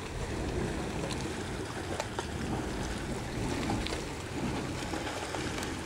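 Hot spring water churning and bubbling steadily, with scattered small pops and wind buffeting the microphone.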